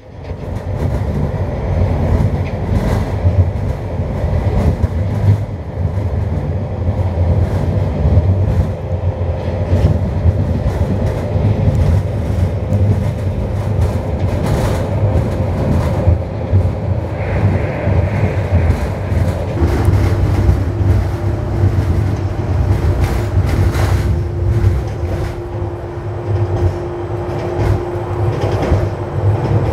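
Miami Metrorail Budd rapid transit train running on its rails: a steady, loud rumble with wheel clatter. A steady hum comes in about two-thirds of the way through.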